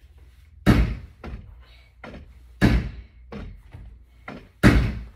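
Three loud thuds about two seconds apart, with several lighter knocks in between.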